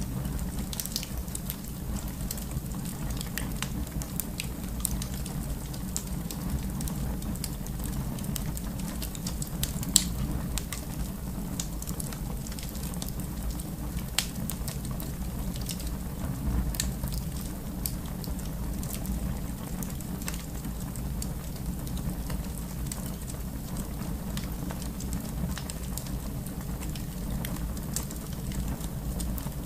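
Wood fire in a fireplace crackling: a steady low rumble of flames with scattered pops and snaps, one sharp pop about ten seconds in.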